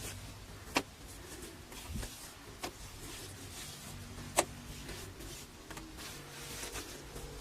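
Three sharp taps or clicks, roughly two seconds apart, the third the loudest, over a low steady hum.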